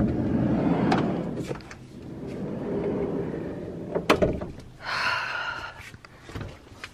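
Camper van's sliding side door rolling along its track, with a sharp knock just after four seconds in.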